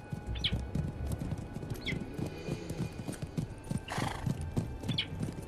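Hooves of several horses clip-clopping on a dirt track as the riders come on at a trot, with a few brief high cries over them.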